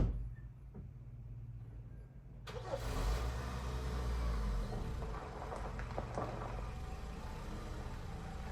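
An engine running with a steady low hum. About two and a half seconds in, a rushing noise joins it and the engine grows louder for a couple of seconds.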